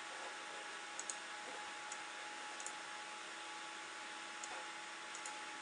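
Computer mouse buttons clicking about seven times, some in quick pairs, over the steady whir of the open-bench PC's cooling fans.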